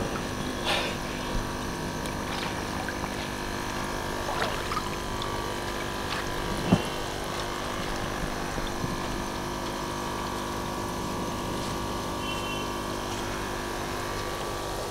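Water bubbling and trickling in a fish tank from its aeration air stone, over the steady hum of the air compressor feeding it. A single short knock comes about halfway through.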